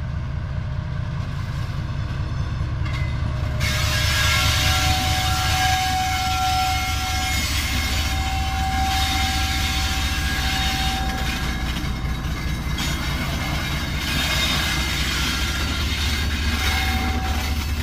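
GEU40 diesel-electric locomotive running past at close range, its engine giving a deep steady rumble as it hauls a dead ZCUP30 locomotive and wagons. It gets louder about four seconds in as the locomotives draw level, and high steady tones come and go over the rumble.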